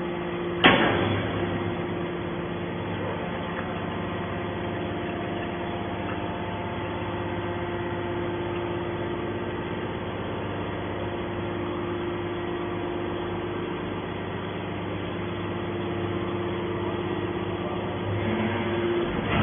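Hydraulic scrap-metal baler running with a steady hum from its motor and pump, with one sharp clank about a second in.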